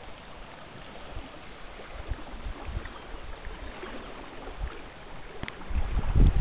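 Shallow river water flowing and rippling, with low rumbling bumps on the microphone that grow strongest near the end.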